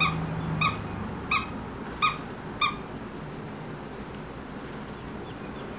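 A dog biting a plush squeaky toy, making it squeak five times in a steady rhythm about two-thirds of a second apart, stopping about three seconds in.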